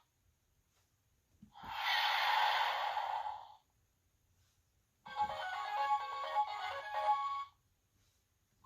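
Two electronic sound effects from a children's Play-A-Sound book's small speaker module. About a second and a half in comes a noisy hiss-like effect lasting about two seconds. After a short pause there is a brief jingle of quick electronic notes.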